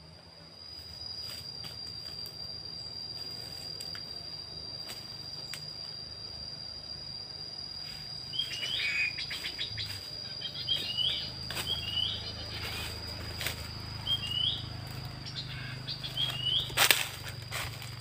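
An insect's steady high-pitched drone with rustling and snapping of undergrowth. From about halfway through, a bird gives short, sharp chirps that hook upward at the end, repeated about once a second.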